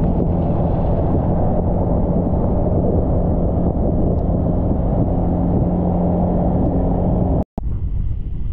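Motorbike engine running steadily while riding, under a heavy rumble of wind on the microphone. The sound cuts out for a moment near the end and comes back thinner.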